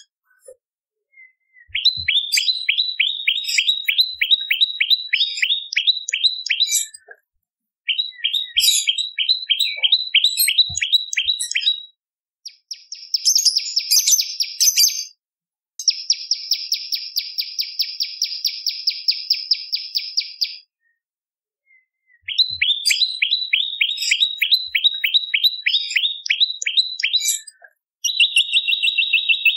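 Prenjak lumut singing: runs of rapid, sharp chip notes, about four or five a second, in phrases several seconds long with short pauses between. Midway come two higher, faster trills with a buzzy quality.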